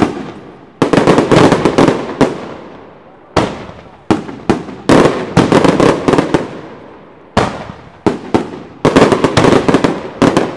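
Italian daytime firework battery (batteria) of firecrackers fired along strung lines, going off in loud sharp bangs. Dense rapid volleys come about a second in, around five seconds and around nine seconds, with single reports between, each ringing on and fading.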